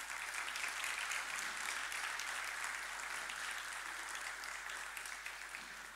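Audience applauding, swelling quickly at the start and tapering off toward the end.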